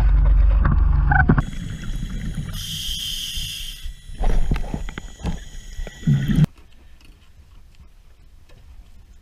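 Rough low rumble and splashing of water at the surface as a ray is let go by hand, then a scuba diver's regulator underwater: a hiss of breath drawn in, then two gurgles of exhaled bubbles. Near the end it cuts to a much quieter stretch with faint ticks.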